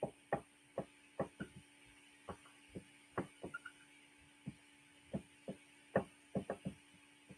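Dry-erase marker writing on a whiteboard: a string of short, irregularly spaced taps and small squeaks as the letters are stroked, over a faint steady hum.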